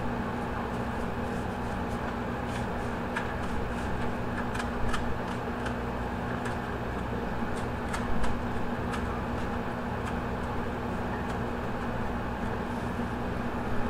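Steady hum of a ventilation unit running in a small room, with a few held low tones. Faint, scattered ticks and scrapes come from handling the fish on a stainless-steel table.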